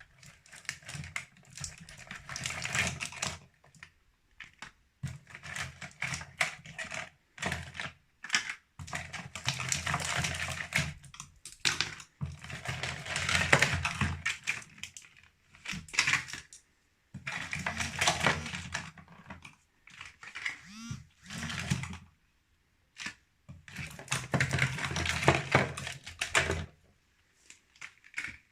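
Sweets and candy clattering and rustling as handfuls are dropped and handled, in bursts of a few seconds with short pauses between.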